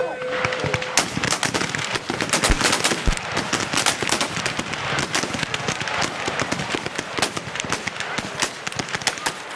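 A steady pitched signal tone ends about a second in, then many muzzle-loading muskets fire in a dense, irregular string of shots along the firing line, often several shots a second.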